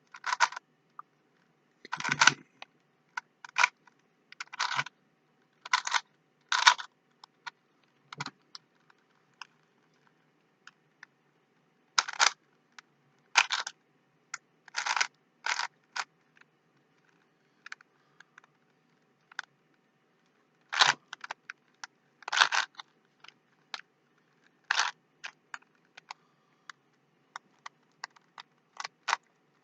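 Plastic Rubik's Cube being twisted by hand: short clacking, scraping turns in irregular bursts, with brief pauses between moves.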